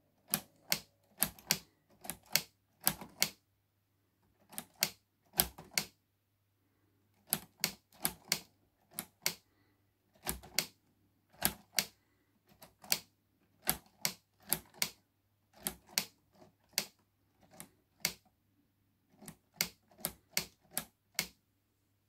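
Keys of a LEGO typewriter model being pressed one after another, each stroke a sharp plastic clack. The strokes come in irregular runs broken by short pauses.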